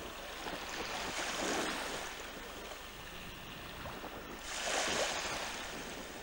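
Small sea waves washing and splashing, with two louder surges, one about a second and a half in and one around five seconds in, over a steady rush of water.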